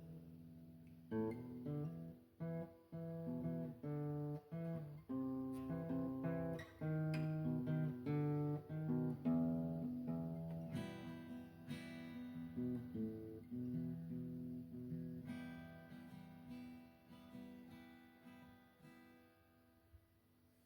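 Acoustic guitar playing an instrumental outro, picked and strummed chords starting about a second in. The last chord rings out and fades away.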